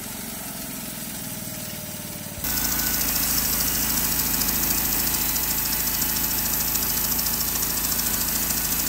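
Homemade sawmill's engine running steadily. About two and a half seconds in, the sound jumps suddenly to a louder, noisier run and holds there.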